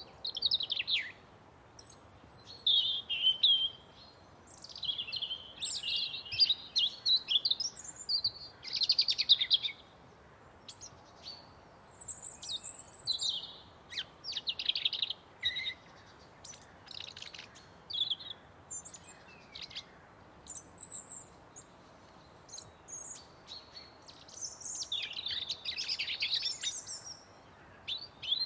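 Songbirds chirping and singing, with several short calls and trills overlapping in irregular bursts over a faint steady background hiss.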